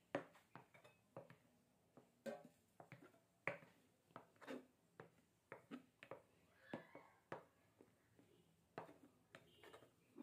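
Silicone spatula folding whipped egg whites into egg-yolk batter in a glass bowl: faint, irregular short scrapes and taps of the spatula against the glass, with soft wet squishes of the batter.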